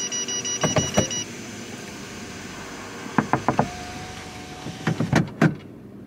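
Car interior: a rapid electronic warning chime beeping for about the first second, then a series of sharp clicks and knocks from handling the door-side controls, with a short steady hum in the middle and the loudest clicks near the end.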